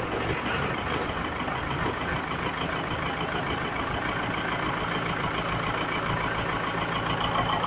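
Ford 7710 tractor's four-cylinder diesel engine idling steadily just after a cold start, with no block heater plugged in.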